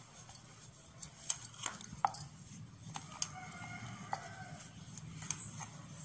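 Rolling pin working a ball of paratha dough on a stone board: scattered light clicks and knocks as the pin rolls and shifts, over a steady low hum.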